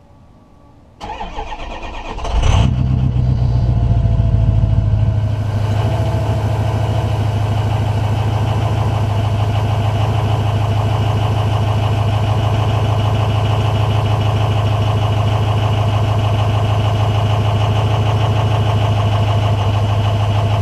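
A 2006 Ford F-250's 6.0 Power Stroke V8 turbodiesel cold-starting, heard at the exhaust tip through a Magnaflow muffler. The starter cranks for about a second and a half, the engine catches and runs louder for a few seconds, then settles into a steady idle.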